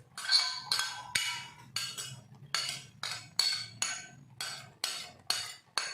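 Metal cooking utensil clinking repeatedly against a pan while seasoning is stirred into the dish, a sharp ringing strike about twice a second.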